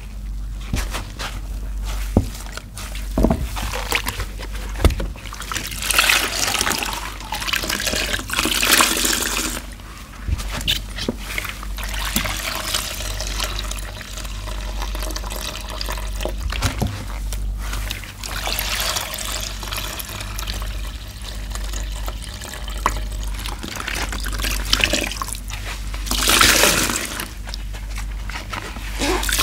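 Wet sponges squeezed and squished by rubber-gloved hands in soapy water, water squelching and trickling out of them. There are louder squeezes about six to nine seconds in and again near the end.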